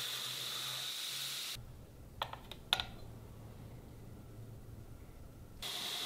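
A faint steady hiss that cuts off after about a second and a half, then two light clicks with a brief ring, half a second apart, in near quiet; the hiss returns near the end.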